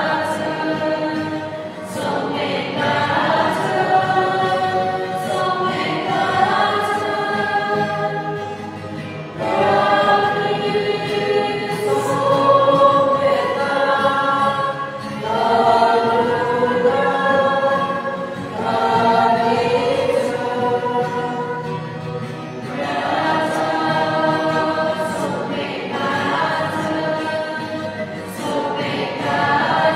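A group of voices singing a hymn together, in slow, held phrases of a few seconds each with short breaks between them.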